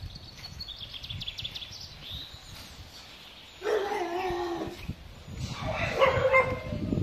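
Pit bull dog vocalizing: two drawn-out, whining yelps of about a second each, the second higher-pitched than the first, past the middle and near the end.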